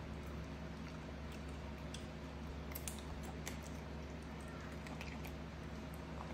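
A pet monkey nibbling and chewing small green fruits held to its mouth: scattered soft clicks and crunches, a few a second at most, over a steady low hum.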